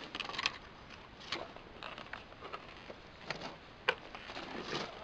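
Light clicks and knocks of a steel tape measure being pulled out and laid against a wooden trim board, five or six of them spread unevenly over a few seconds.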